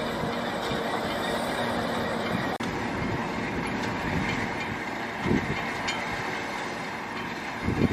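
Fendt 724 tractor and Ropa Keiler II potato harvester running steadily in the field, a continuous mechanical clatter with an occasional low thump.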